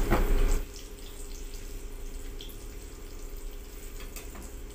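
Eggplant omelette frying in oil in a small pan, a steady sizzle with scattered small pops and crackles. A louder burst of noise in the first half-second cuts off abruptly.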